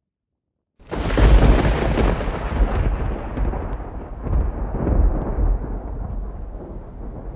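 Silence, then about a second in a sudden loud, deep rumble with crackling on top, which slowly fades away.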